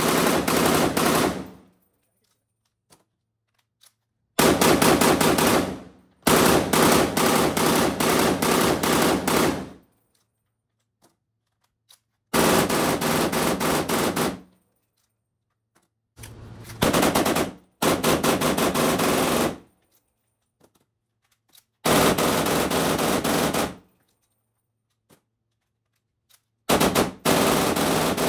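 POF CW39 7.62×39 rifle firing on full auto in long bursts of rapid shots, about seven bursts of one to three and a half seconds each, with a second or two of quiet between them.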